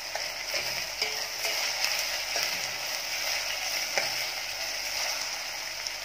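Chopped onions sizzling in hot oil in a stainless steel pot while a steel spoon stirs them, with a few sharp clinks of spoon on pot, the loudest about four seconds in. The onions are being sautéed on medium flame until light brown.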